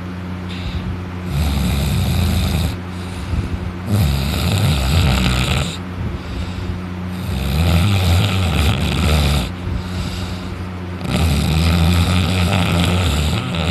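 A man snoring loudly while sleeping on his back with his mouth open: four long, heavy snores, each lasting about two seconds, coming roughly every three seconds.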